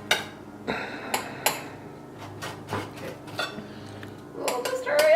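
Metal utensils clinking and knocking against plates and pans in a series of sharp, separate strikes.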